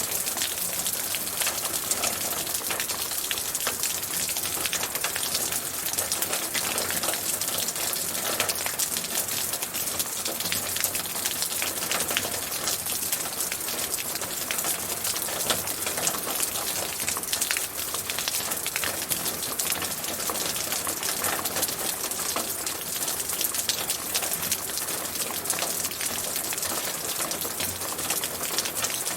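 Steady rain falling, a dense patter of drops with fine individual drop clicks throughout.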